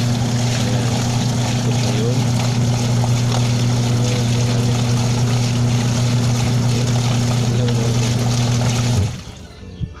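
Hanabishi WM-6162 washing machine motor running, a steady electric hum over a whirring noise, cutting off suddenly about nine seconds in. The motor that would not turn is running again after the repair.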